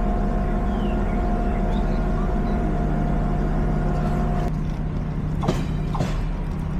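Passenger train carriage noise: a steady low hum with a held tone that cuts off about four and a half seconds in, then two short knocks about half a second apart.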